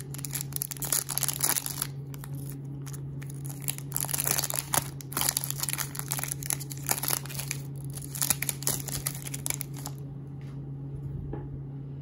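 A Topps Chrome baseball card pack's wrapper being torn open and crinkled by hand, crackling in irregular spurts, then dying away about ten seconds in as the cards come out.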